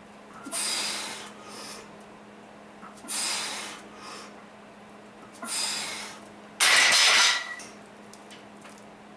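A person breathing hard, with hissing breaths about every two and a half seconds, then a louder, sharper blast of breath about seven seconds in.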